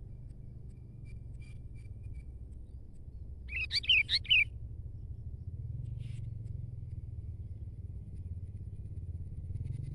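Sooty-headed bulbul singing one short, loud burst of four or five quick rising and falling notes about three and a half seconds in, after a few faint chirps.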